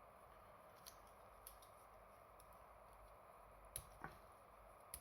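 Faint clicks from the plastic hinged legs of a Beast Box spider figure as they are unfolded by hand: about five small snaps, the sharpest about four seconds in, over quiet room hiss.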